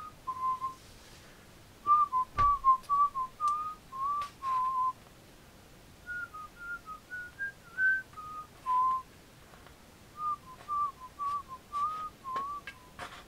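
A person whistling a tune in short notes, in phrases of a few seconds with pauses between. A single knock about two and a half seconds in.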